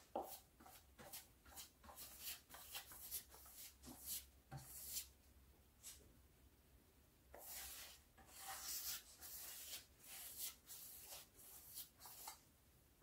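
Faint swishes of a brush drawn over a wooden countertop, laying on clear varnish in a run of short strokes with a few longer ones near the middle, over a steady low hum.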